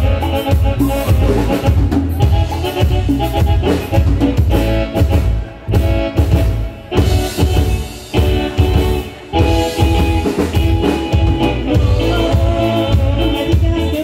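A norteña band playing live, with a pulsing drum and bass beat under held melody notes, easing off briefly a couple of times partway through.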